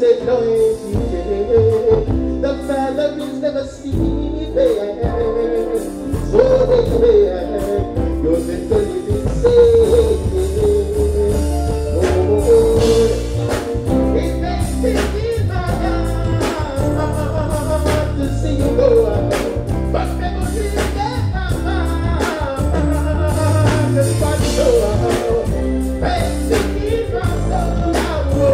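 Male vocalist singing a melodic line into a microphone over a live band with bass, guitar and drums.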